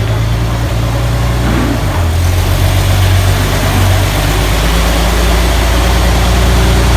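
5.3-litre LS V8 swapped into a 1946 Chevy pickup, idling steadily, its idle shifting briefly about two seconds in. It is running smoothly, a lot better than it was.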